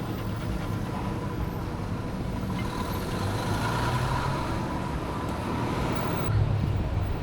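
Steady road traffic noise, with vehicle engines running along a city street.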